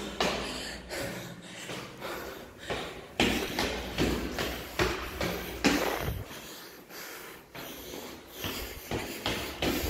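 Quick footsteps on tiled stairs, about two to three steps a second, with heavy, breathless panting from the climber.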